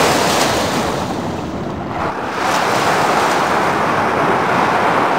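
Small waves washing up onto a sandy shore, a steady hiss of surf. It eases off, then a fresh wave rushes in about two seconds in.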